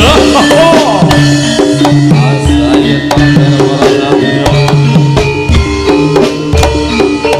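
Live instrumental music from a Javanese turonggo (horse-dance) ensemble: hand drums and a drum kit play a busy, steady beat over sustained pitched instruments.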